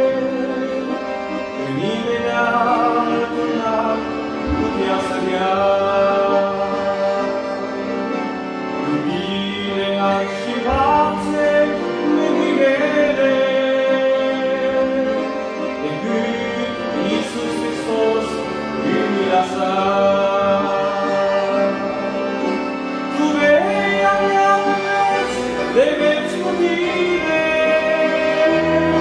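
A man singing while accompanying himself on a button accordion, which holds sustained chords under the voice.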